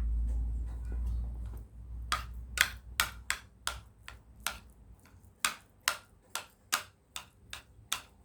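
A low rumble for the first second and a half, then a run of sharp, separate clicks, about two or three a second and unevenly spaced.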